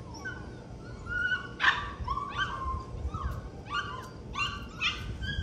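Goldendoodle puppies whining and yipping in short high-pitched cries, with a few louder yelps, over a low wind rumble.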